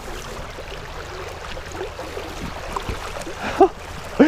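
River water running steadily over a rocky bed, heard close to a wading angler. A short voice sound breaks through about three and a half seconds in.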